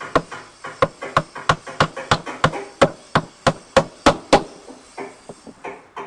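Hammer driving nails into wooden boards, with even blows about three a second. The hammering pauses about four and a half seconds in and starts again near the end.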